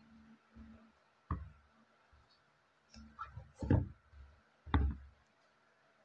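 Sneakers handled and set down on a wooden tabletop: the soles knock against the wood about a second in, then twice more in the second half, with smaller taps between.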